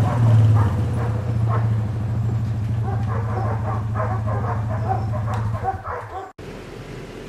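Vehicle engine idling with a steady low hum, with a dog making many short, high calls over it. The sound cuts off abruptly about six seconds in.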